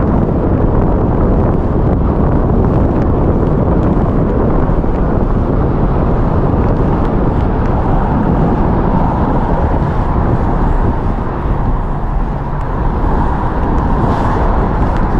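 Wind buffeting the microphone: a loud, steady, uneven low rush.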